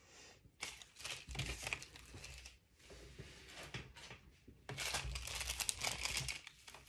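Plastic packaging crinkling and rustling as jewelry is handled, on and off, loudest about a second in and again near the end.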